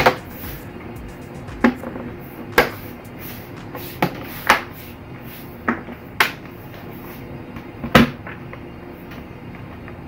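Plastic bottom cover of an HP 17 laptop being pressed down onto the chassis. It gives a series of about eight sharp, irregularly spaced clicks and knocks as its edge clips snap into place and the case is handled.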